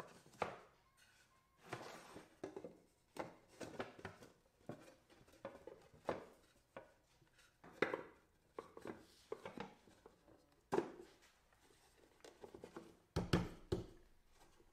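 Wooden drawer-box parts handled and fitted together by hand: irregular light knocks, clacks and scrapes of wood on wood. A louder cluster of knocks comes near the end as the box is set down and squared up.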